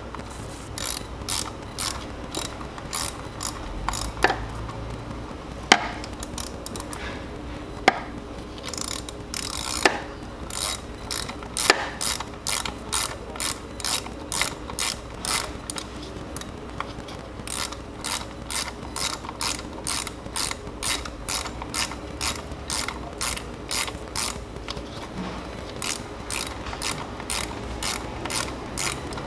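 Socket ratchet clicking as a spark plug is run down into the engine: a steady run of ratchet-pawl clicks, about two to three a second, with a few short pauses and some louder single clicks.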